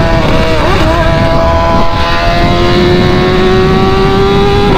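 BMW motorcycle engine with a loud, open exhaust under way: it shifts up about half a second in, then pulls steadily through the gear with its pitch slowly rising, and shifts again at the very end.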